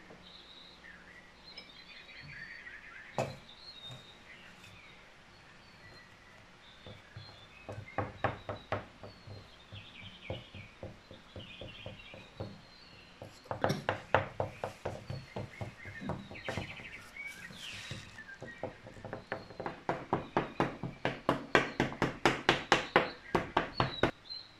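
A fork docking pizza dough, its tines tapping through onto the metal pan in rapid runs of light clicks, about five a second, the longest and loudest bout near the end. Birdsong from a nature-sounds backing track chirps throughout.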